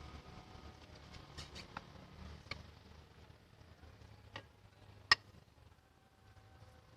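Several sharp, separate clicks and taps over a faint low hum, the loudest about five seconds in.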